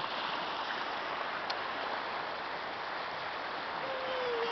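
Shallow mountain river rushing over a rocky bed: a steady hiss of flowing water. Near the end a short wavering tone rises over it.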